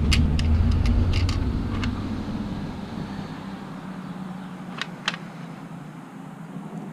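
Light clicks of small RC sway bar parts being handled, a few in the first two seconds and two more about five seconds in, over a low rumble and hum that fade away over the first few seconds.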